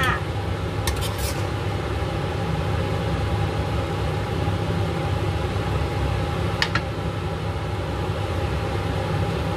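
A steady whirring hum, with a few light clicks of a spatula against the nonstick pan and plate: two about a second in, and one near seven seconds.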